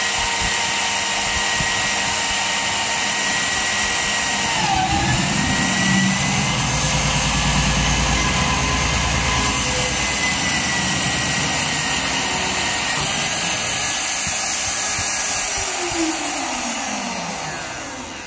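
Magnetic base drill running under load as its annular cutter bores through steel plate: a steady high whine over grinding, the pitch dipping briefly about five seconds in. Near the end the motor winds down with a falling tone.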